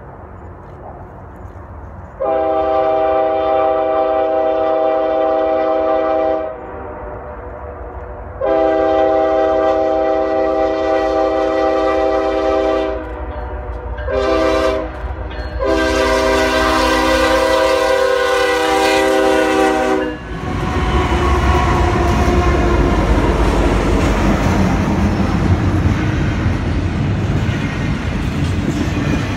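Freight locomotive's multi-note air horn blowing the grade-crossing signal, long, long, short, long, as the train approaches. After the last long blast the horn stops and the locomotives and double-stack container cars pass close by with a loud, steady rumble of engines and wheels on the rails.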